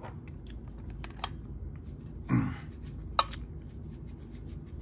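A few faint sharp clicks and taps from handling, with one short low hum-like voice sound a little over two seconds in.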